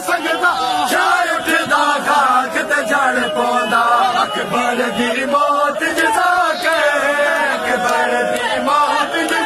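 A crowd of men chanting a Punjabi noha, a Shia mourning lament, together, led by a reciter on a microphone, with the slaps of matam chest-beating among the voices.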